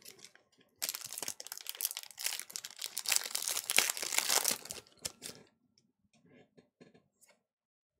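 Foil wrapper of a Pokémon Evolutions booster pack crinkling and tearing as it is ripped open by hand, for about four seconds, stopping a little after five seconds in. A few faint light clicks follow near the end.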